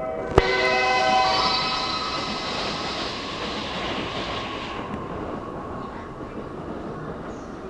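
Train running past a station platform: a sharp click about half a second in, then brief whistling tones over a broad rushing noise that dies down about five seconds in.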